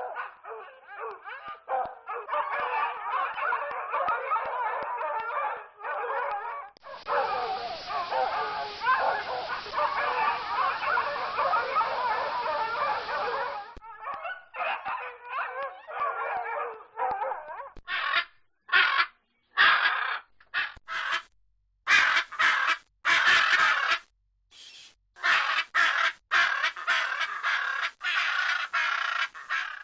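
A pack of bloodhounds baying and yelping in an overlapping chorus. From about two-thirds of the way in, it gives way to a macaw's loud, harsh squawks, one at a time with short gaps between.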